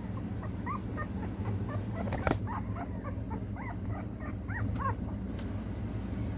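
Two-week-old American Pit Bull Terrier puppy whimpering: a run of short, high squeaks and yips, thickest between about two and five seconds in. A single click about two seconds in, over a steady low hum.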